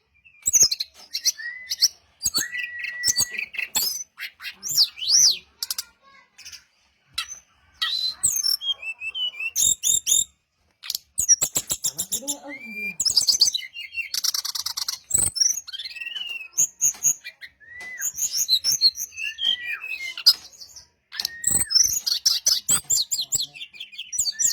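Brown-chested jungle flycatcher singing a long, varied song of short whistled notes, rapid trills and chirps, phrase after phrase with brief pauses.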